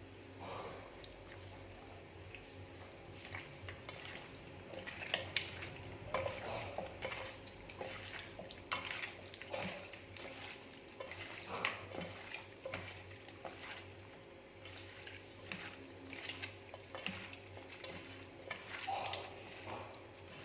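Raw chicken pieces being mixed with a wet masala of spice powders, ginger-garlic paste and vinegar in a bowl: irregular squishing and scraping with occasional knocks against the bowl, over a steady low background hum.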